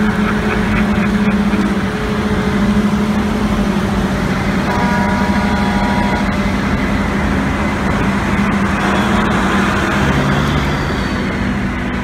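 Diesel engines of a self-propelled forage harvester and silage trucks running steadily under load during corn chopping. A brief steady pitched tone sounds about five seconds in and lasts about a second and a half.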